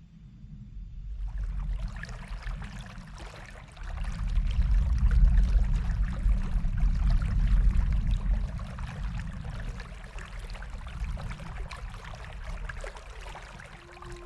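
Rushing water with a deep low rumble, fading in from quiet, the hiss joining about a second in and the flow loudest in the middle.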